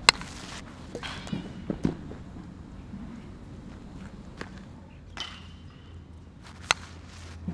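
A baseball bat cracking against a ball twice, once just after the start and again near the end, as ground balls are hit for fielding practice. Between the hits come lighter knocks and steps of a fielder running on infield dirt.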